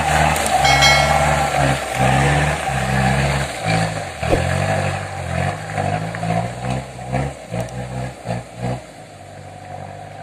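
Dump truck's engine working hard as the truck pulls past and climbs a muddy slope, its low, pulsing note fading steadily as it moves away.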